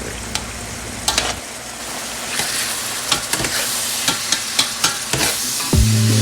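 Food sizzling in a hot pan while it is stirred, with short clicks and scrapes of a utensil against the pan.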